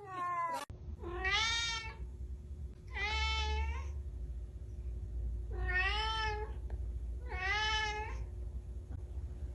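Domestic cat meowing four times, each meow under a second long with a rise and fall in pitch, evenly spaced a couple of seconds apart, just after the falling tail of an earlier call.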